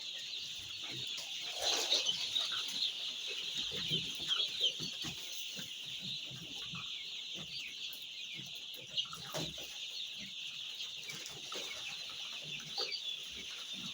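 A brood of week-old chicks peeping continuously, a dense, high-pitched chorus of many overlapping chirps.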